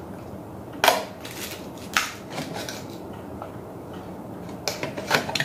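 Small hard plastic clicks and taps from handling an action camera and its battery pack: two sharp clicks about a second apart, then a quick run of clicks near the end.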